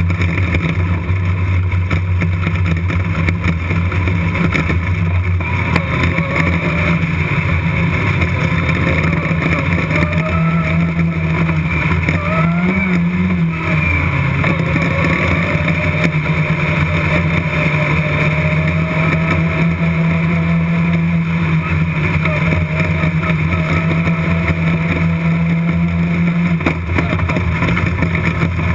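Race car engine heard from inside the cockpit, running continuously at steady revs. The note steps up about five seconds in, rises and falls briefly about halfway through, and drops near the end.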